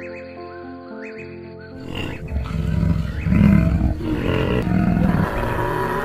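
Background music, then a large animal roaring and growling in several rough surges from about two seconds in.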